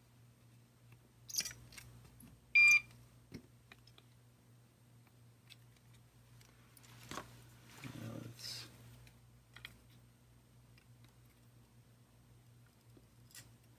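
Bench soldering on a metal shield: a few faint clicks and taps of the iron and metal over a steady low hum, with a short electronic beep about two and a half seconds in and a brief soft hiss around eight seconds.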